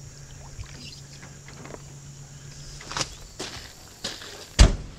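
Faint water and canoe-paddling sounds over a low steady hum. Then a couple of light knocks and, near the end, one loud, deep thump, fitting a Jeep 4x4's rear hatch being shut.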